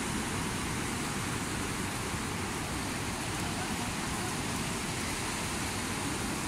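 Steady rushing noise of surf breaking on a sandy beach, even and unbroken.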